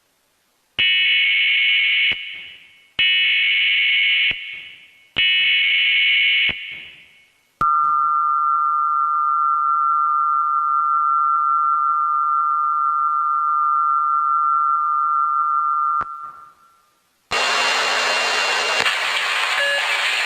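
Emergency Alert System test: three short bursts of the warbling digital header data, each a little over a second long, then the steady two-tone attention signal held for about eight seconds. About seventeen seconds in, a loud rushing noise begins.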